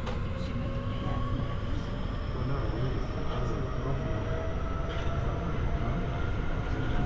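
Southeastern electric train running, heard from inside the carriage: a steady low rumble of wheels on the track, with a motor whine that rises slowly in pitch as the train gathers speed.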